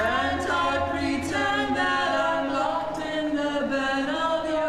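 Several voices singing together in English, holding long notes in a slow, smooth melody, with no instruments heard.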